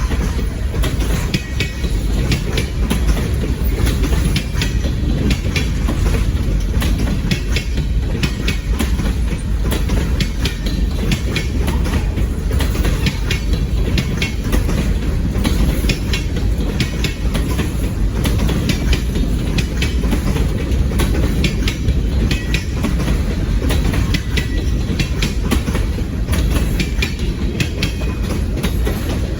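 Ontario Northland train cars rolling past with a steady low rumble, their wheels clicking over the rail joints.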